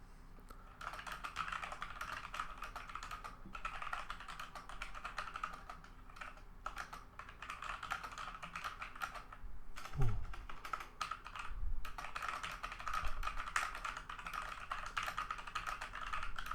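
Typing at regular speed on a Logitech G413 mechanical keyboard with Romer-G tactile switches: a steady run of soft keystroke clicks with a few short pauses. A louder thump comes about ten seconds in.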